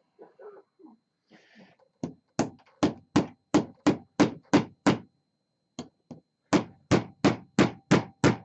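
Ball-peen hammer blows on a LiFePO4 battery case, struck in quick even runs of about three a second: a string of nine, a short pause, then a second string, as the case is beaten open along its seam.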